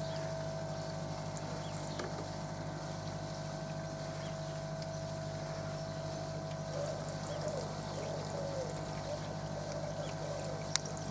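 Koi pond air pump running with a steady electric hum and a thin steady whine above it, just switched back on to aerate the pond.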